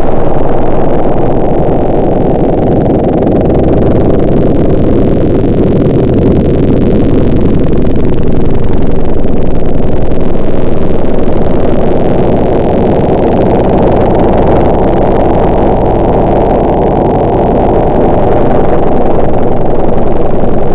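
A motor engine running continuously and loudly, its level swelling and easing a few times.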